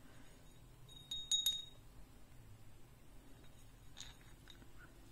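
Small souvenir hanging bell, hung beneath a metal horseshoe, rung lightly by hand: a quick cluster of faint, high, clear dings about a second in, then a couple of fainter ones near four seconds.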